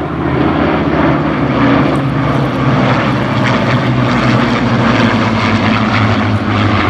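Formation of Spitfires and a Hawker Hurricane flying past, their Rolls-Royce Merlin V12 piston engines running together in a loud, steady propeller-aircraft drone.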